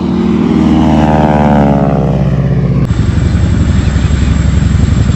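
Loud aircraft passing close, its engine tone shifting in pitch as it goes by; about three seconds in it cuts to a helicopter's rapid rotor beat.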